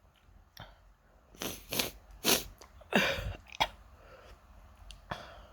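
A person with an itchy nose sniffing and breathing noisily: a run of short sniffs, the loudest about three seconds in, then a sharp snort soon after and a faint one near the end.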